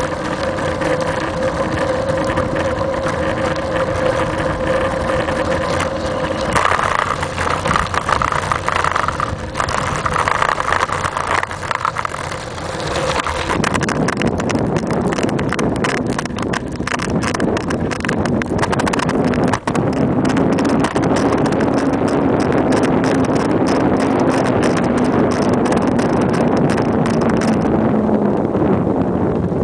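Wind and road noise picked up by a camera mounted on a moving bicycle. From about halfway, rapid clicking and rattling is heard over the rushing noise.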